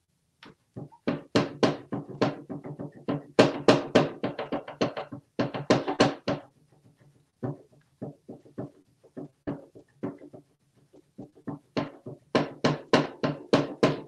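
An African grey parrot pecking and tugging at a plush toy fish in a wooden drawer, giving irregular knocks and thumps against the wood. The knocks come in quick runs, thickest in the middle and near the end, with sparser single knocks between.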